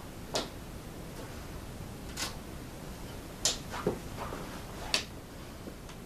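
About five light, sharp clicks and knocks, spread a second or so apart, as a vacuum cleaner's long power cable and plug are handled and gathered up for rewinding.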